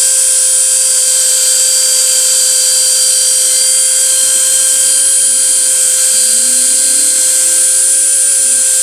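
CNC router spindle running with a steady high-pitched whine and a strong hiss on top, during a test cut. Fainter tones rise and fall underneath.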